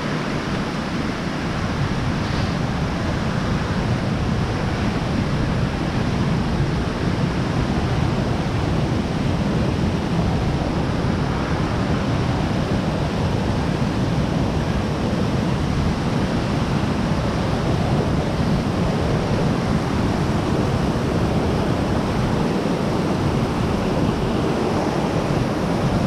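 Steady rush of fast-flowing stream water, running high.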